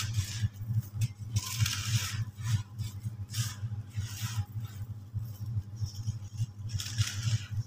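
Dry, dusty cement chunks being crushed in the hands: crunching crackles and the hiss of fine grit pouring from the fingers, coming in several bursts, over a steady low hum.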